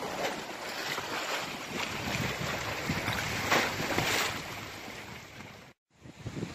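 Wind noise on the microphone over the wash of sea waves, with a few louder gusts about three and a half to four seconds in. The sound drops out abruptly near the end.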